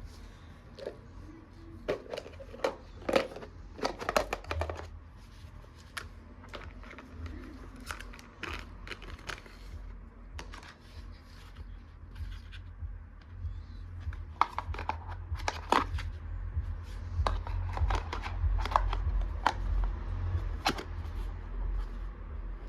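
Plastic toy kitchen items handled: irregular sharp clicks, taps and small scraping sounds, over a steady low hum.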